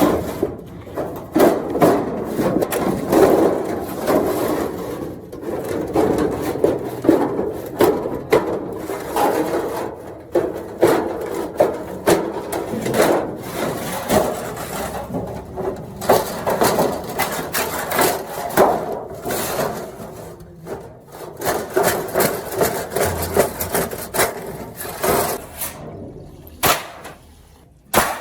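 Irregular knocking, tapping and scraping of hand tools at work, several knocks a second, thinning out and getting quieter near the end.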